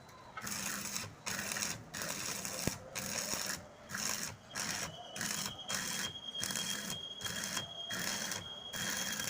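Electric arc welding on sheet metal: a crackling hiss in short bursts that stop and start about once a second. A faint steady high whine comes in about halfway through.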